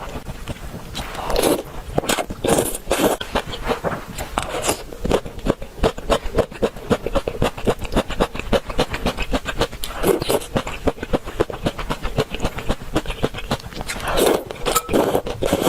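Close-miked chewing of crunchy food: a dense run of rapid crisp crunches, with louder bites here and there.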